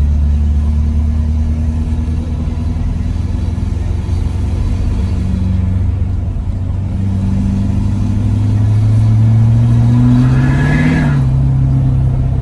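Ford Super Duty's Powerstroke diesel engine running while driving, its note climbing steadily from about two-thirds of the way in as the truck accelerates. A short rush of noise comes as the pitch peaks, then the note drops back a little and holds.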